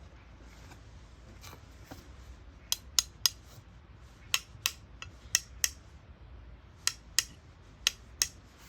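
A series of sharp metallic clicks, mostly in pairs about a third of a second apart, starting nearly three seconds in: small metal parts of a blade-holding tool being handled and fitted together.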